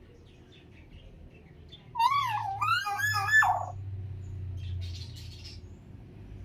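Parrot giving a loud warbling whistle that swoops up and down in pitch, starting about two seconds in and lasting under two seconds, with fainter chirps around it.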